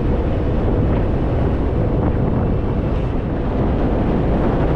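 Steady wind buffeting on the microphone of a rider on the move, with the Harley-Davidson Fat Boy's engine running underneath.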